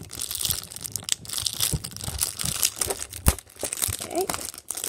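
Clear plastic wrapping around a MoYu magnetic Skewb crinkling and tearing as it is unwrapped by hand, an irregular crackle with a sharp knock about three seconds in.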